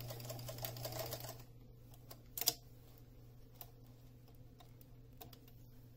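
Electric sewing machine stitching in a fast run of needle clicks, backstitching to anchor the end of a seam, then stopping about a second and a half in. A few scattered clicks follow, one sharper than the rest a little past two seconds, over a steady low hum.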